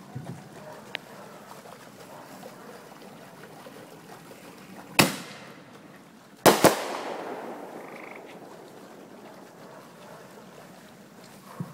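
Aerial fireworks bursting overhead: one sharp bang about five seconds in, then two bangs in quick succession about a second and a half later, followed by an echoing rumble that fades over several seconds.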